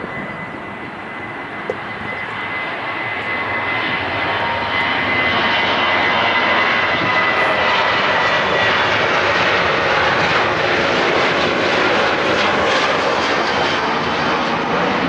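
Boeing 737-800's CFM56-7B jet engines at takeoff thrust during the takeoff roll, getting louder over the first five seconds as the jet nears and then holding steady. A thin high whine sounds over the engine noise for the first several seconds and fades out.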